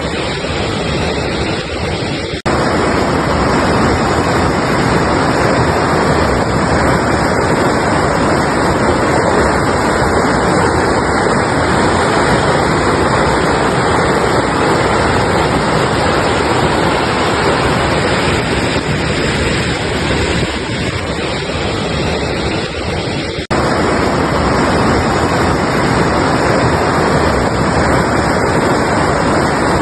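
Mountain river rushing steadily, a dense even roar of water. It drops out for an instant twice, about two and a half seconds in and again about 23 seconds in.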